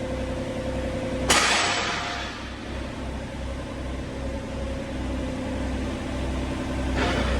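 John Deere 35G mini excavator's diesel engine running steadily. About a second in comes a sudden loud rush of noise that fades over about a second, and a weaker one near the end.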